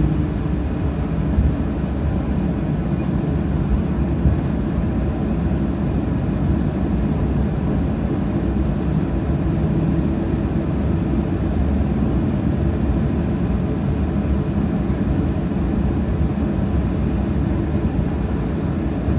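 Cabin noise inside a Boeing 737-800 taxiing on the ground: the CFM56-7B turbofans run at taxi power as a steady low drone and rush. Two faint knocks come in the first few seconds.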